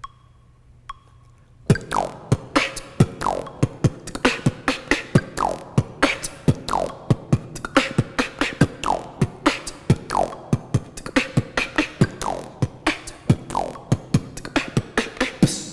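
A metronome ticks about once a second. About two seconds in, a fast, intricate beatbox rhythm begins, mixing mouth-made drum hits with lip rolls heard as repeated falling-pitch sweeps.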